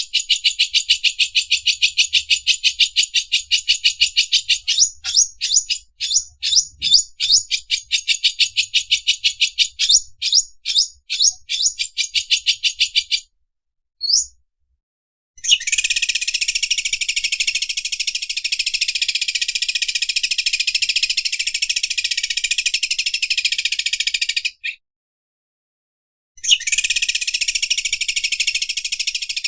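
Cucak ijo (greater green leafbird) singing its 'mesin obras' song, a high mechanical rattle like an overlock sewing machine. It starts as a fast run of separate rattling strokes, then after a short break turns into a continuous buzzing trill that stops abruptly and starts again near the end.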